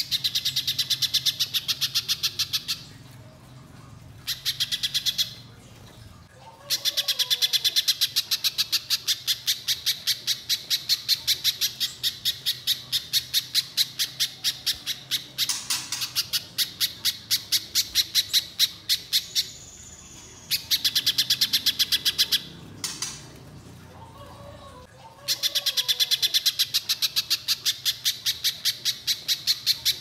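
Little spiderhunter singing long rapid runs of sharp, evenly repeated notes, about five a second. The runs break off briefly a few times before starting again.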